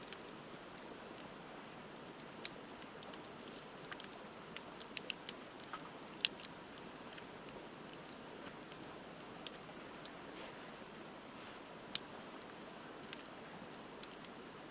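Wood campfire crackling, with scattered sharp pops, a cluster of them a few seconds in and the loudest about six seconds in, over the steady rush of a river.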